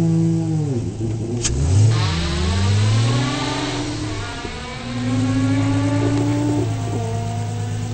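Rally car engines: one drops in revs, then revs and accelerates away from the start line with the pitch climbing. After that an engine runs steadily at idle.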